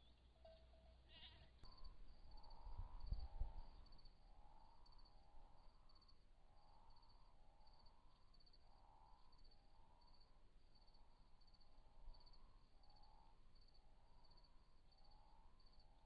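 Faint night ambience: insects chirping about twice a second, with a repeated bleat-like call about once a second. A low thumping rumble sounds about three seconds in.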